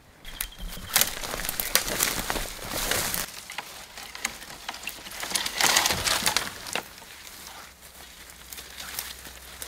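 Dry branches and twigs snapping and crackling as they are broken and pulled by hand through brush, with leaves and litter rustling. The crackling comes in two busy spells, early on and again about six seconds in.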